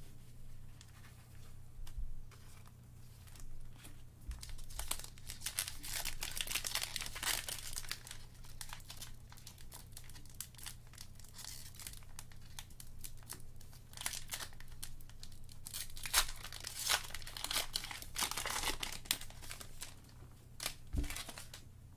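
Trading-card pack wrapper crinkling and tearing as it is opened, with the rustle and slide of a stack of cards handled in nitrile-gloved hands. It comes in irregular bursts, heaviest about a quarter of the way in and again about three quarters in.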